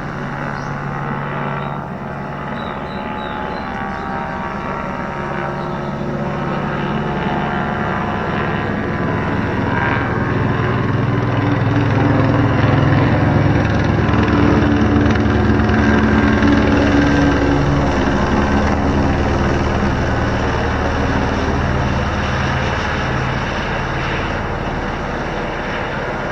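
Helicopter passing close overhead, its rotor and engine sound swelling to a peak about halfway through and then fading as it moves away.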